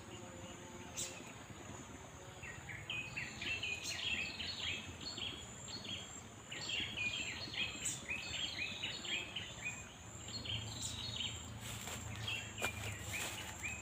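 Riverside birdsong: birds giving rapid runs of short chirps from a couple of seconds in, over a steady high insect drone, with a few sharp clicks scattered through.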